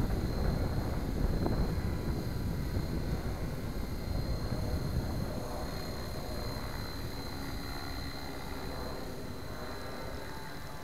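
Gaui X5 electric RC helicopter in flight, its motor whine and main rotor noise holding a steady pitch on a fixed 70% throttle with no governor. The sound eases slowly in the second half as the helicopter flies farther out.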